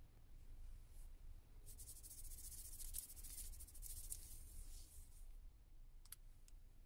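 Quiet room with a faint scratchy rustle lasting about three and a half seconds, a fingertip rubbing shimmer powder onto the skin of the wrist, followed by two small clicks near the end.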